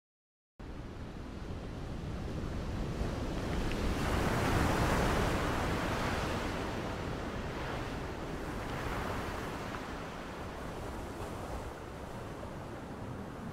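A rushing noise with no tone in it comes in abruptly just under a second in, swells to its loudest around four to five seconds in, then eases off and holds.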